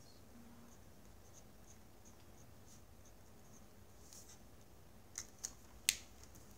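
Pen scratching on paper in a run of faint short strokes while writing. About five to six seconds in come three sharp clicks, the last the loudest.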